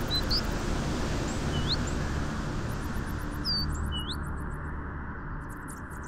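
Small songbird chirping: a quick run of short rising notes at the start, then a few single upswept calls a second or two apart, over a steady low rush of background noise, the whole sound slowly fading.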